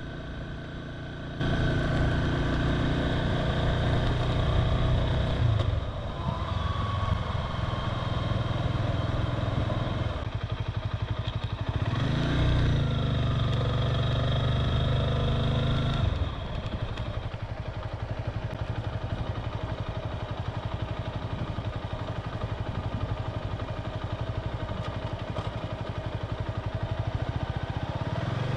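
Motorcycle engine running while riding, a steady engine note that comes in loudly about a second and a half in. About twelve seconds in the note rises and falls briefly as the engine revs, and it settles a little lower about sixteen seconds in.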